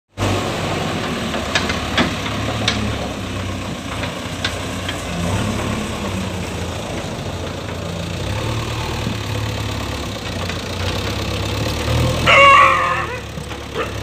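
JCB 3DX backhoe loader's four-cylinder diesel engine running steadily as the machine moves with its loader bucket lowered, with a few light clicks in the first few seconds. A short, louder high-pitched call cuts in near the end.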